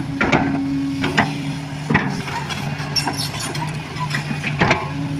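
A machine's engine running steadily, with a few sharp knocks now and then.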